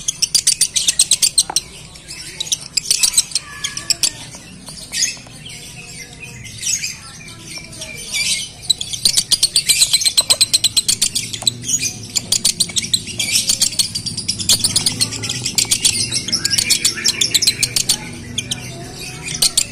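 Male Fischer's lovebird singing in the 'konslet' style, a male in breeding condition: long runs of rapid, high-pitched chattering clicks and trills, broken by short pauses.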